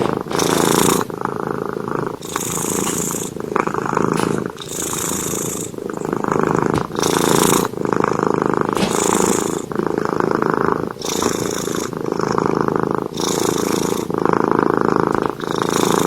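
Sleeping domestic cat purring steadily. The purr alternates between in-breath and out-breath in a regular cycle of about two seconds.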